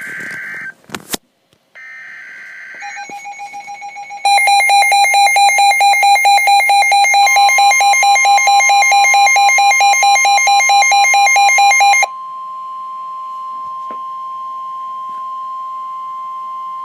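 NOAA Weather Radio emergency alert: short buzzing digital header bursts open it, then a loud, rapid alarm beeping starts about four seconds in. About seven seconds in, a long steady warning alarm tone comes in under the beeping and carries on alone after the beeping stops near twelve seconds.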